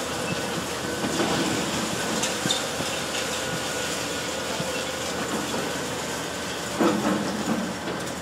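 High-reach demolition excavator crunching into a concrete building with its jaw attachment, giving a steady grinding, crackling din of breaking concrete and falling debris, with hissing from a water spray for dust control. There is a louder crunch about seven seconds in.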